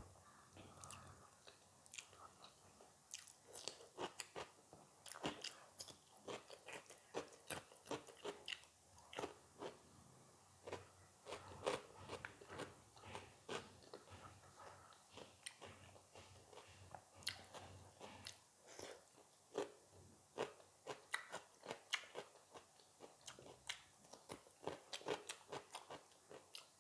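A person chewing and biting food close to the microphone, with many sharp, irregular crunches and wet mouth clicks, a few each second.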